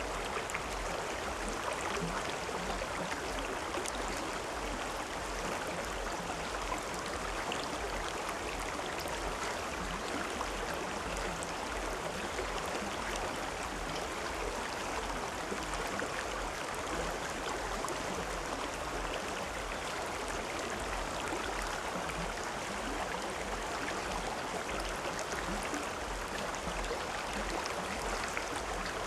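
River or stream water flowing steadily over rocks, a continuous rushing and gurgling with small splashes.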